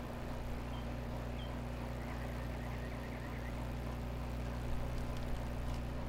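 Microwave oven running: a steady low electrical hum with fan noise, its turntable turning.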